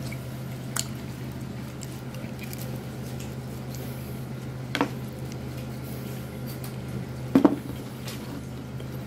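Steady low hum with a few short clicks and knocks as food and a cardboard pizza box are handled; the loudest knock comes about seven and a half seconds in.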